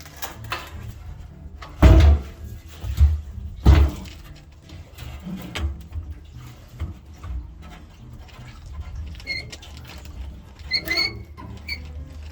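Knocks and scraping from parts being shifted and pushed up under a pickup truck: three loud clunks in the first few seconds, then smaller knocks and a few short high squeaks near the end.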